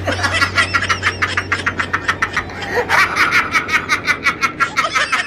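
Loud, rapid laughter: a long run of quick ha-ha pulses, several a second, going on almost without a break.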